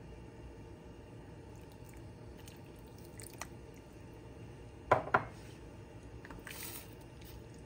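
Cookware handling over a pot of soup: two sharp knocks close together about five seconds in, then a short soft swish as a silicone spatula goes into the soup to stir it.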